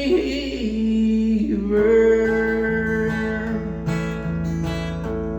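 Acoustic guitar strummed between sung lines, its chords ringing on. A held sung note bends and fades in the first second or so.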